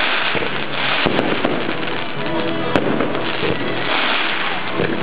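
Fireworks going off: sharp bangs of bursting shells, several close together about a second in and another near the middle, among continuous crackle, with music playing throughout.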